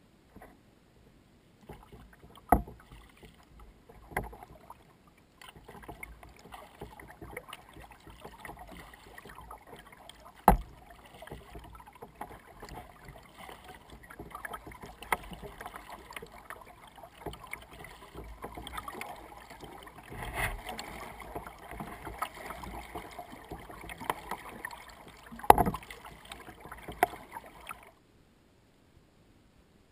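Kayak paddling on a river, heard close to the deck: continuous water sloshing and splashing along the hull, with a few sharp knocks on the hull. The sound cuts off near the end.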